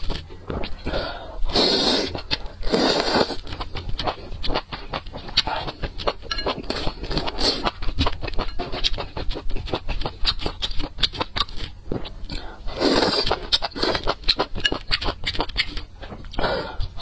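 Close-miked eating of enoki mushrooms and meat from a spicy soup: continual wet chewing clicks and smacks, with longer slurps about two seconds in, about three seconds in, around thirteen seconds in and near the end.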